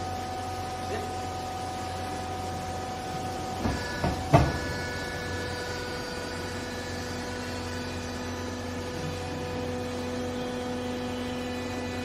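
Vertical hydraulic clothing baler running, its electric motor and hydraulic pump making a steady whine while the press plate drives down to compress used clothes. A sharp clunk comes about four seconds in, where the pitch of the whine changes.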